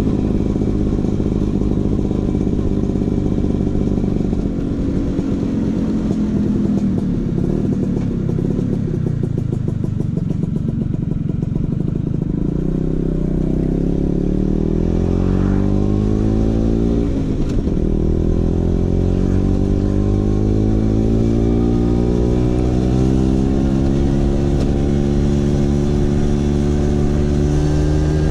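Vespa PX 150's single-cylinder two-stroke engine running through a DRC Victory racing exhaust while under way. The note is rough for the first several seconds, then climbs in pitch, drops sharply about two-thirds of the way through, and climbs slowly again.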